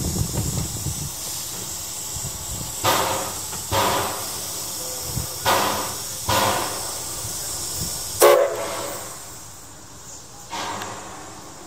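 Wood-burning 4-4-0 steam locomotive 'Edison' No. 1 moving slowly, with steam hissing steadily from its front end. About six sharp steam blasts come a second or so apart, the loudest near the end.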